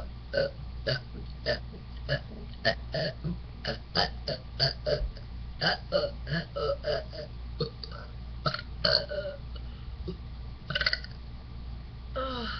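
A woman burping: a quick string of short burps, about two to three a second, followed by a couple of longer burps near the end.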